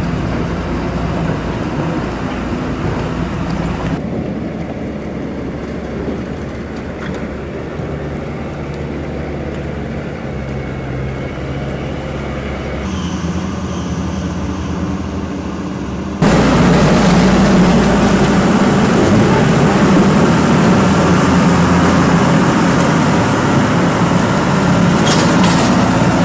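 Steady drone of running machinery with a low hum. It shifts abruptly a few times and gets louder about two-thirds of the way through.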